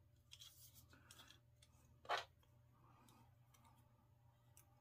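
Near silence with faint handling sounds: soft clicks and rubs as a plastic bushing is fitted into a fishing rod handle, with one short, louder click about two seconds in.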